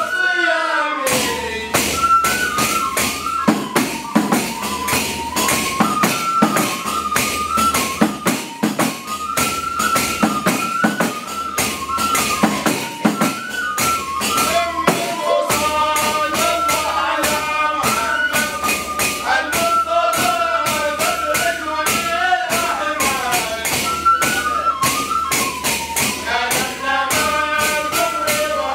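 A group of men singing a traditional Hadhrami chant from Tarim, with a stepping melody, over hand-beaten frame drums playing a fast, dense rhythm.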